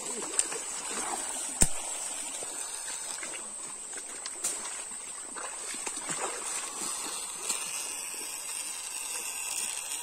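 Stream water rushing and splashing around legs wading through a shallow, rocky stream. A steady high-pitched whine sits above the water, and a single sharp knock comes about a second and a half in.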